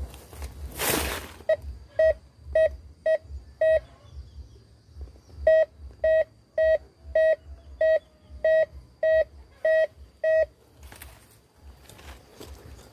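Metal detector giving repeated short, steady, mid-pitched beeps about two a second: a run of five, a pause of under two seconds, then a run of nine. The beeps are the detector signalling a buried metal target.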